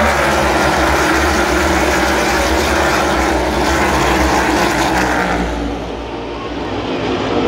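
A pack of Gen 7 NASCAR Cup cars, pushrod V8 engines, accelerating past in a loud, dense mass of engine noise. It fades about five and a half seconds in as the field pulls away down the track.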